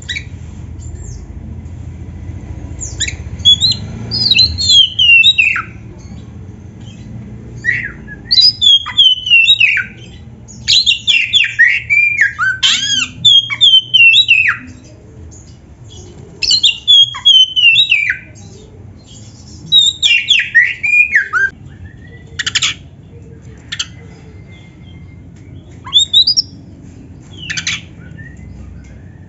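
Oriental magpie-robin (kacer) singing: bursts of rapid, downward-slurring whistles mixed with sharp, clicky notes, each run lasting one to three seconds with short pauses between, over a low steady hum.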